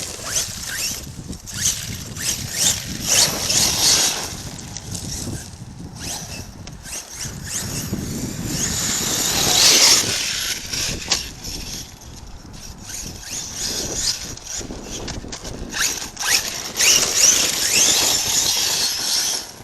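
Arrma Kraton 6S RC monster truck on an 8S brushless power system being driven hard, its motor and drivetrain whining up and down in repeated surges as the throttle is worked, with a squeal over the top.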